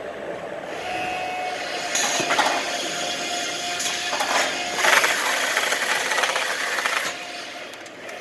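Siat XL33.PC automatic carton taper running, with a steady motor hum from its belt drives. Louder rough, rasping noise comes in stretches from about two to seven seconds in.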